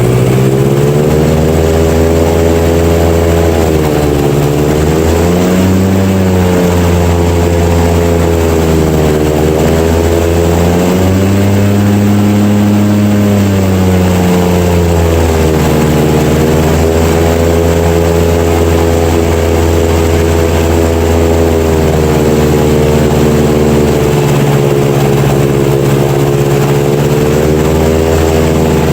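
Airboat running under way, its engine and air propeller loud throughout. The pitch falls and rises several times with the throttle in the first half, then holds steady.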